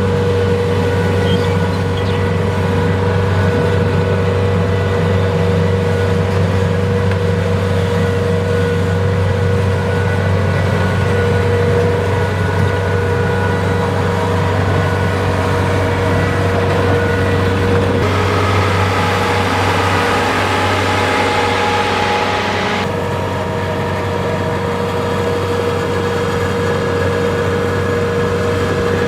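Kubota DC-70 Plus rice combine harvester's diesel engine running steadily under load, with a steady whine. Roughly two-thirds of the way through, a hissing noise joins in for about five seconds and then cuts off suddenly.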